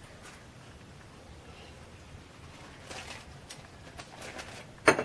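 Small metal tools being handled on a workbench: quiet at first, then a few light clicks from about halfway, with a sharper click near the end.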